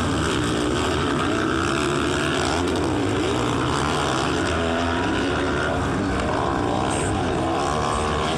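Several motocross dirt bike engines running hard together, their pitches rising and falling as the riders open and close the throttle.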